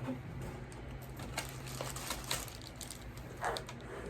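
A few faint taps and light clicks of objects being handled and set down on a table, over a low steady hum.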